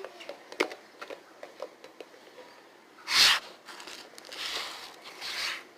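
Handling noise: scattered light taps and clicks, then a loud rustling burst about three seconds in, followed by two softer rustles near the end.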